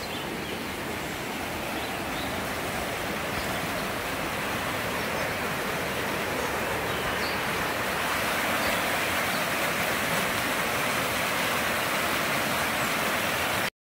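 Shallow, rocky river rushing through whitewater riffles: a steady roar of water that grows gradually louder, then cuts off abruptly just before the end.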